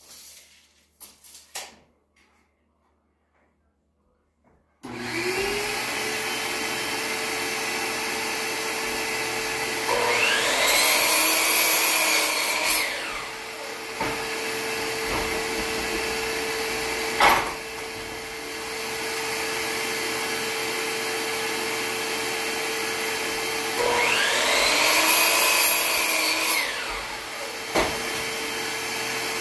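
A shop vacuum switches on about five seconds in and runs steadily as dust collection. Over it, a miter saw's motor whines up, cuts through a tongue-and-groove wood board and spins down, twice, with a few sharp knocks of boards being handled between cuts.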